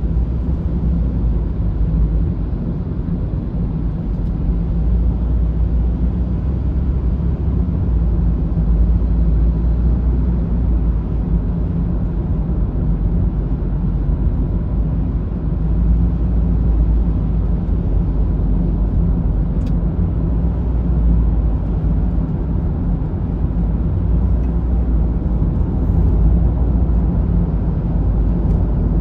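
Steady low road rumble heard from inside a car's cabin at motorway speed: tyre and engine noise with no change in pace.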